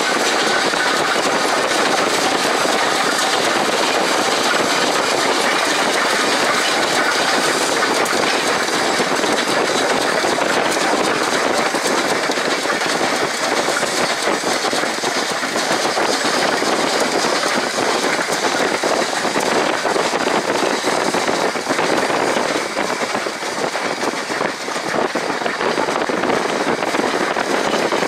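Steam locomotive Pere Marquette 1225, a 2-8-4 Berkshire, running at speed: a loud, steady rush of exhaust and rolling train noise, heard from a car pacing alongside and mixed with that car's road noise.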